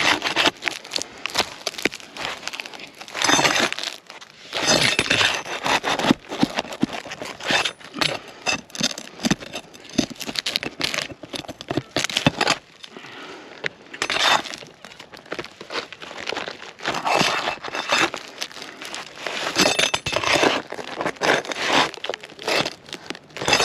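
Asphalt roof shingles being pried up and worked free: irregular scraping and crackling bursts with sharp clicks, as the stiff shingle is pulled loose from under the course above.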